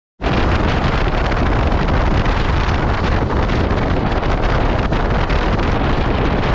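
Loud, steady wind rushing over the microphone of a motorcycle on the move, with the KTM 390 Adventure's single-cylinder engine running underneath.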